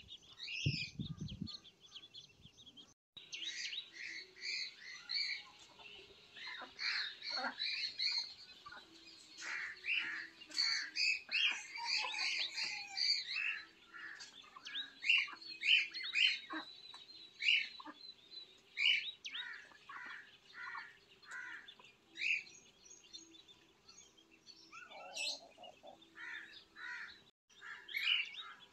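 A brood of ducklings peeping: a busy, continuous run of many short, high chirps overlapping one another.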